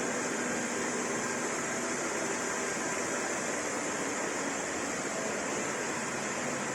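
Steady hiss with a faint low hum from a powered-up CNC lathe standing idle, its fans and hydraulic unit running, with no cutting or axis moves.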